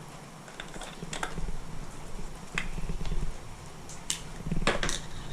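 Handling of a skincare product's packaging: several sharp clicks and taps, the loudest pair near the end, as the small product is unpacked and opened.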